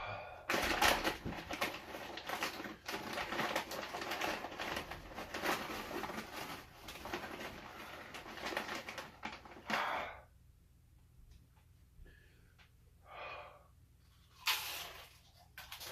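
A man breathing hard and noisily through his mouth against the burn of ghost pepper chips: a dense run of rapid breaths for about ten seconds, then a few separate breaths near the end.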